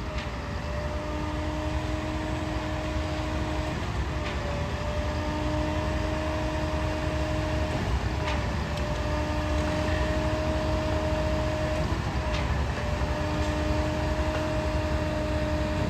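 Truck-mounted concrete boom pump running steadily under diesel power, with a sharp knock about every four seconds as the pump cycles, and its hum briefly changing pitch at each knock.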